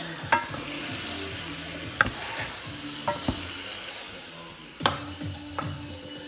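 Wooden spoon stirring meatballs and potato cubes frying in a pan: a steady sizzle, broken by several sharp knocks of the spoon against the pan, the loudest about two seconds in and near the five-second mark.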